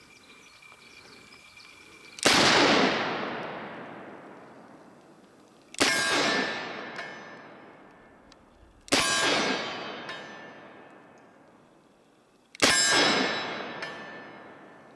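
Four shots from a Smith & Wesson 629 .44 Magnum revolver, spaced about three to four seconds apart. Each shot is followed by a long echo that dies away over a few seconds.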